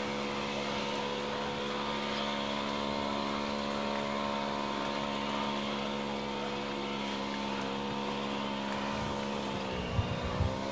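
An engine drones steadily at an even pitch. Its pitch sags briefly and comes back near the end, and two short knocks sound at the same time.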